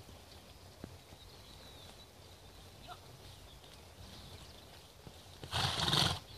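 A horse snorting once, a short, loud blow through the nostrils lasting under a second, near the end; before it only faint background.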